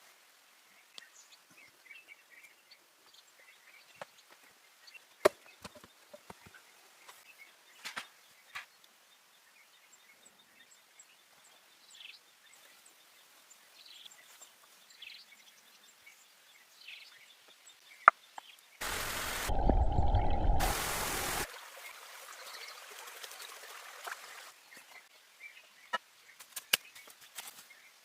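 Scattered light clicks and knocks, with a loud burst of noise about two-thirds of the way through that lasts about two and a half seconds and starts and stops abruptly.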